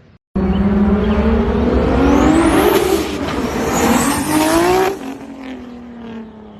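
Turbocharged car engine accelerating hard, its pitch rising along with a high turbo whistle, then the throttle closes about five seconds in and the engine drops back to a quieter, steadier sound.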